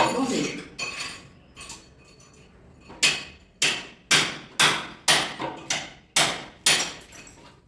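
Regular hammer blows, about two a second, starting about three seconds in, with a few fainter knocks before them.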